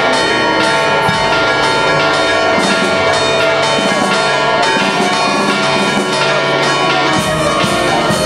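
Church bells pealing rapidly in a festive ring, struck about twice a second, with many bell tones ringing on together.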